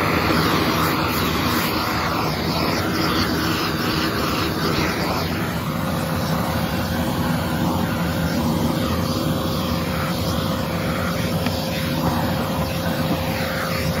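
Armor All vacuum cleaner running steadily, its floor nozzle drawn over the truck's carpet and floor mat as it sucks up dirt and dust. A thin steady tone joins the motor's hum about six seconds in.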